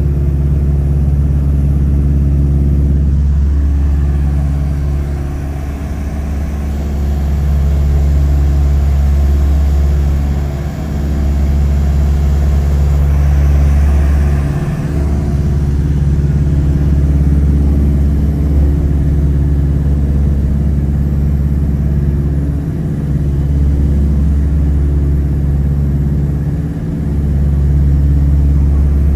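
Douglas DC-3's twin radial piston engines and propellers droning steadily, heard from inside the cabin during the climb after takeoff. The drone is deep and loud, and dips briefly every few seconds.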